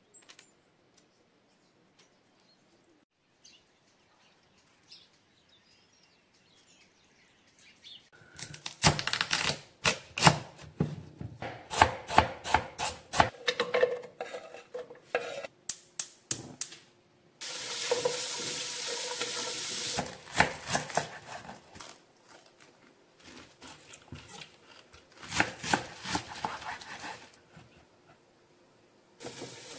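Near silence for about eight seconds, then a kitchen knife chopping vegetables on a wooden cutting board: runs of quick, sharp knocks. About halfway through comes a steady hiss lasting roughly two seconds, and a second short run of chopping follows near the end.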